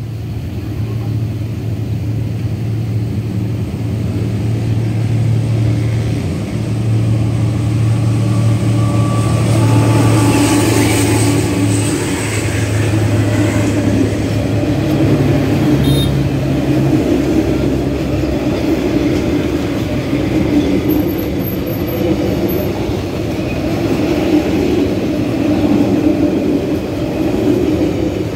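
Train going past: a locomotive engine runs with a steady low drone for roughly the first half, then the rumble of the cars on the rails carries on.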